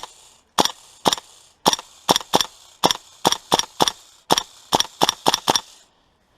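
Airsoft gun firing about fifteen sharp single shots in quick, uneven succession, stopping just under six seconds in.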